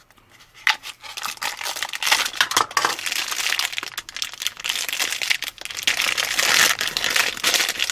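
A few sharp clicks from a small plastic toy box being opened, then a thin clear plastic bag crinkling steadily as hands handle it.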